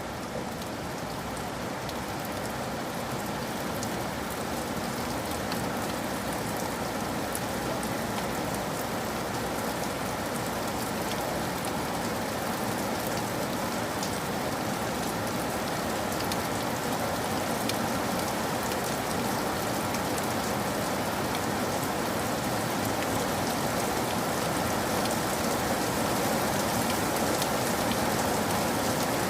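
Steady rain falling on a surface: a dense, even patter with individual drops ticking through it, growing slowly louder.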